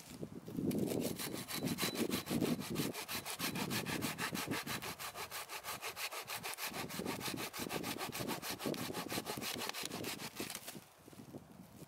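Small camping hand saw cutting through a thin dead log in fast, even back-and-forth strokes, stopping near the end.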